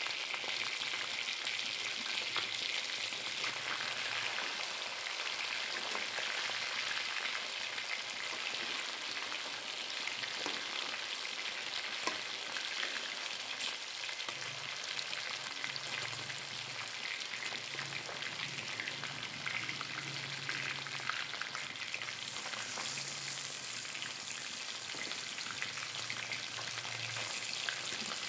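Rohu fish steaks shallow-frying in hot oil in a kadhai: a steady sizzle with dense fine crackling, as the second side fries after the pieces are turned.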